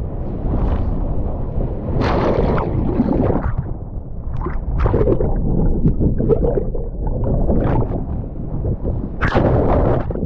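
Wind buffeting the microphone with a constant low rumble, broken by rushing splashes of water, the biggest about two seconds in and near the end.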